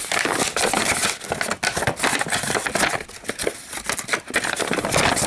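A folded paper instruction leaflet being handled and refolded: dense paper rustling and crackling with many small snaps.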